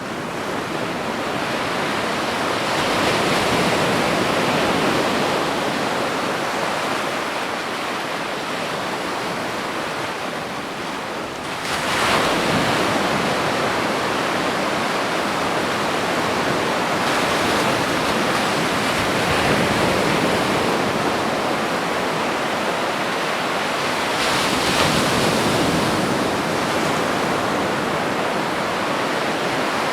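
Ocean waves breaking on a beach: a steady wash of surf that swells and eases, with a wave crashing louder about twelve seconds in and further swells later.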